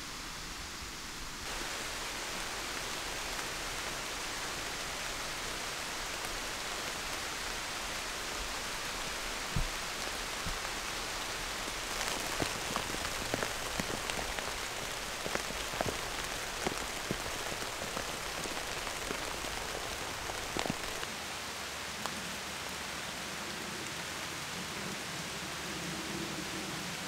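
Steady rain falling on forest leaves, with individual drops tapping close by, thickest between about twelve and twenty-one seconds in.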